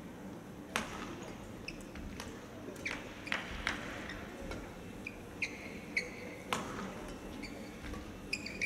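Badminton rally: rackets strike the shuttlecock with sharp cracks about once a second, while court shoes give short high squeaks on the floor, over a low hall murmur.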